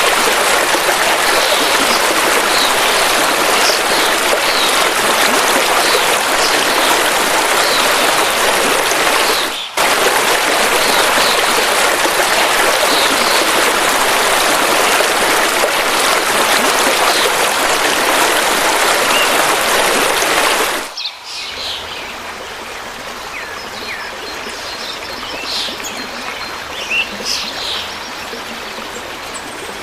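Rushing river water with small birds chirping over it. The water sound breaks off for an instant about ten seconds in. Some twenty seconds in it changes to a quieter, gentler stream, and the birdsong stands out more clearly.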